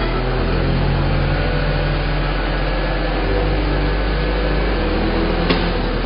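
Off-road 4x4 SUV engine running hard under load as its wheels spin in deep mud, throwing up spray: a steady, dense engine-and-tyre noise.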